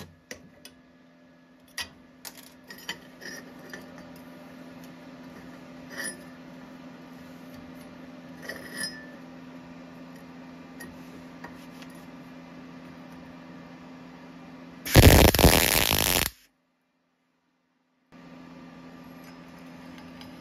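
Welding machine humming steadily, with scattered clicks and clinks of handling. About fifteen seconds in comes a short, loud burst of MIG arc crackle lasting about a second and a half.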